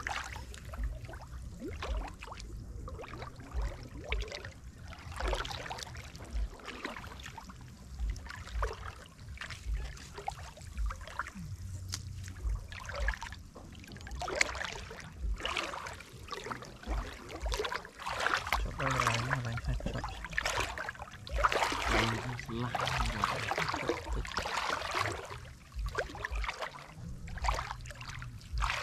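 Shallow water splashing and trickling in irregular bursts, busier in the second half.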